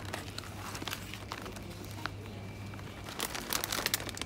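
Plastic snack bag crinkling as it is pulled off a shelf and handled, with a dense run of crinkles near the end as it goes into a shopping basket.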